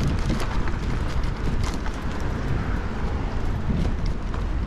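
Wind noise on a GoPro action camera's microphone while cycling, a steady low rumble over road and street noise, with a few light ticks.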